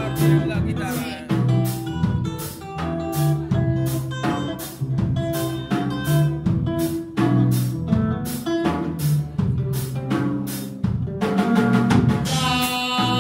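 Live band playing an instrumental groove: a drum kit keeps a steady beat under a moving electric bass line and guitar. About eleven seconds in, a dense held chord joins.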